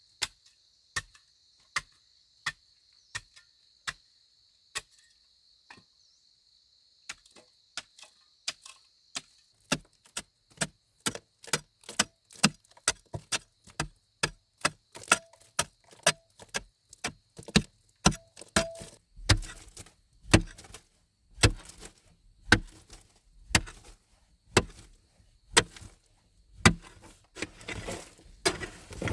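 A long series of sharp chopping blows, spaced out at first and then quickening to about two a second, with heavier, deeper blows in the last ten seconds. A steady high-pitched buzz sounds behind the first few blows.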